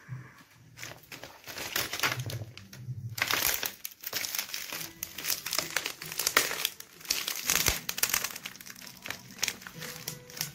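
Plastic parts of a dismantled laptop (keyboard deck, casing and screen frame) crackling and creaking under a person's weight as she steps and stands on them in flip-flops. The crackling starts about a second in and becomes dense and continuous from about three seconds in.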